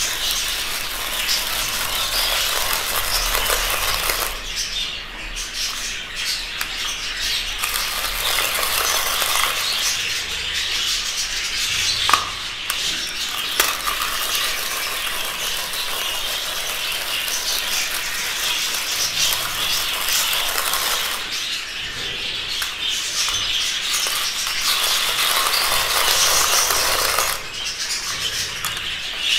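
Hand-cranked rotary grater shredding boiled eggs with their shells, a steady grating scrape, over the chattering of budgerigars in their cages.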